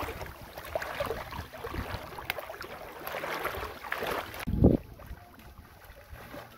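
Wind buffeting the microphone with a rough outdoor noise, then one heavy thump about two-thirds of the way through, after which it turns much quieter.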